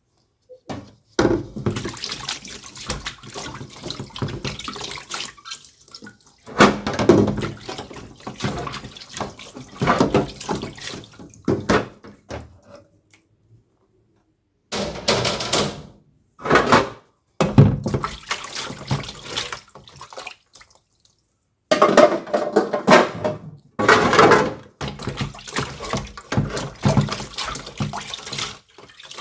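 Water splashing and running while dishes are washed by hand, in stretches of a few seconds that stop and start.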